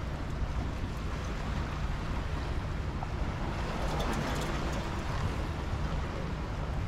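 Steady wind rumbling on the microphone, with sea wash against the rocks of a breakwater; a brief crackle about four seconds in.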